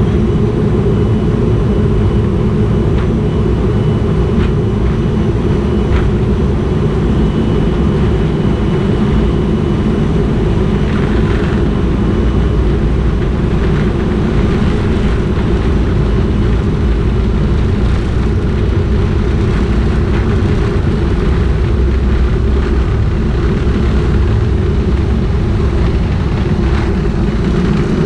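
Jet airliner engines running with a steady low rumble, with a faint thin whine above it.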